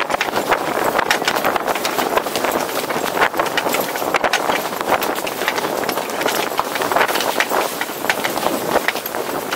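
A sailing ship under way heard from on deck: a steady rushing noise with rapid, irregular clattering and knocks.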